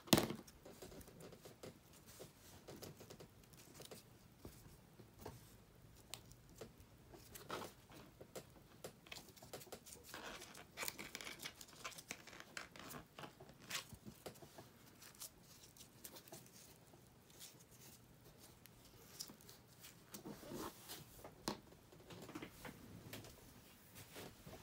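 Faint rustling and crinkling of a curled ribbon being handled and twisted by hand, with scattered light taps and clicks. A sharp tap at the very start is the loudest sound.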